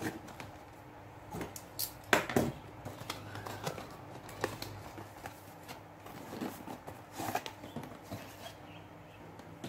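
Cardboard microphone packaging being handled: a white inner box slid out of its printed cardboard sleeve, with scattered scrapes, taps and light rustles. The loudest knock comes a little after two seconds in.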